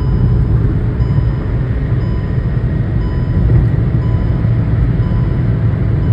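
Hyundai i10 Nios at speed, heard from inside the cabin: a loud, steady low drone of engine, tyre and wind noise. A faint beep recurs about once a second over it.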